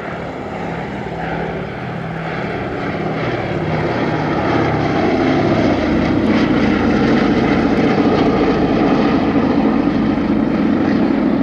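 Boeing B-17 Flying Fortress's four Wright R-1820 Cyclone radial piston engines and propellers droning in a low flypast. The sound grows louder over the first half as the bomber closes in, then stays loud as it passes overhead.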